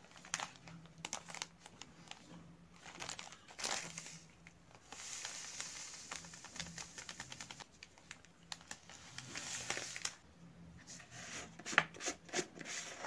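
Plastic Surf Excel detergent packet crinkling as it is handled and tipped, with detergent powder pouring into a plastic bowl in a soft hiss. A cluster of sharp plastic clicks near the end as a plastic lid is handled over the bowl.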